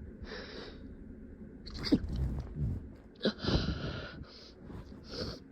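A person stifling sneezes: a breathy inhale, then two sharp, muffled sneezes about a second and a half apart, each trailed by breathy air, and a few short hissy breaths near the end.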